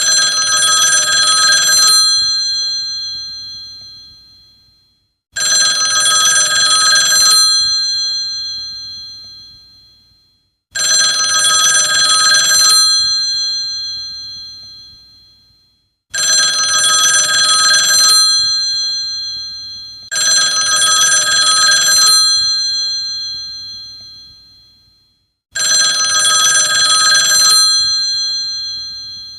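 Old rotary telephone's bell ringing: six rings, each about two seconds of bell followed by a ring-out that fades over a couple of seconds, coming roughly every five seconds.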